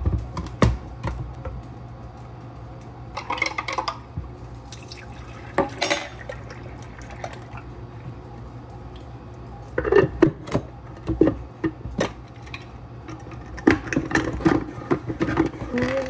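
Milk-and-cream mixture poured from a glass jar into the freezer bowl of a Donvier hand-crank ice cream maker, with knocks and clatters of the jar and plastic parts being handled as the lid and crank are put on.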